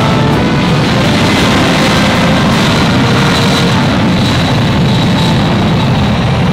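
The jet engines of an ANA Boeing 767 airliner running at high power as it rolls along the runway: a loud, steady rush with a faint whine running through it.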